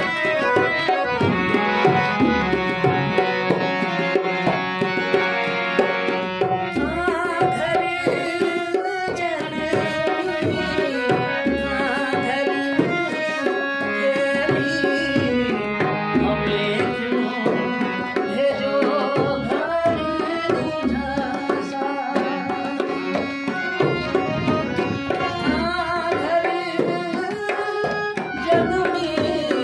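Rajasthani folk song: a harmonium playing held chords, with hand-drum accompaniment. From about seven seconds in, a man sings over it.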